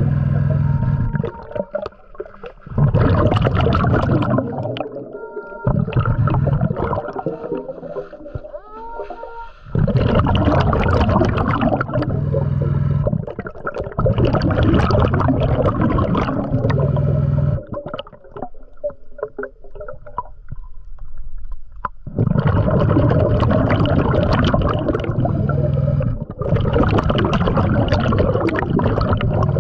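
A diver's exhaled air bubbling underwater in long rushing bursts every few seconds, with a few faint short tones between bursts early on.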